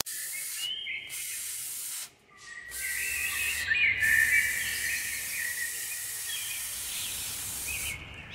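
Laser cutter at work cutting plywood: a steady hiss with a shifting, chirping whine, breaking off briefly a few times, with a low hum joining a few seconds in.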